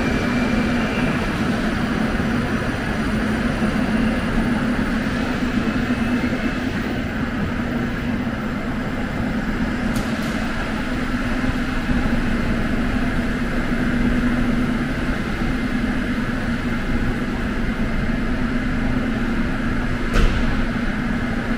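Metro trains standing at an underground platform: a steady hum and rumble of running train equipment under the station ceiling, with a sharp knock near the end.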